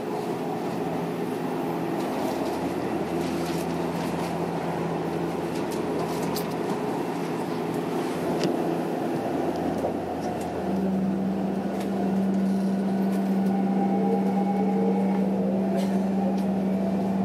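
Tokyo Metro 06 series electric train heard from inside the car: a steady hum while it stands at the platform. About ten seconds in, a strong steady tone sets in and the VVVF inverter traction motors begin a rising whine as the train pulls away and accelerates.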